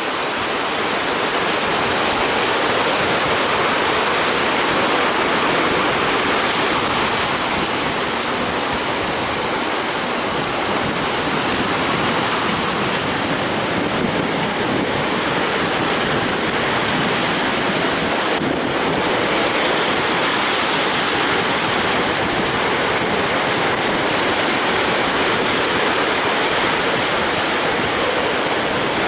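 High surf breaking and strong wind: a dense, steady rush of noise that never breaks, swelling a little now and then.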